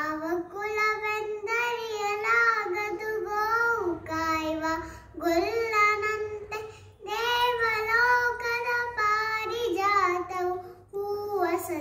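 A young girl singing a Kannada devotional song unaccompanied, drawing out long, wavering notes in a few phrases with short breaths between them.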